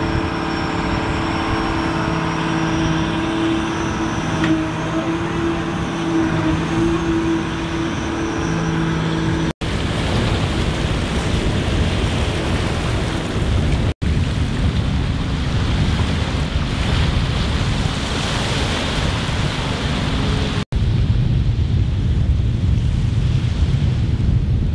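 Military amphibious vehicle's engine running with a steady low hum for the first several seconds. After abrupt cuts, wind and rushing water from a craft moving on choppy sea take over, with a deeper low engine rumble under the wind near the end.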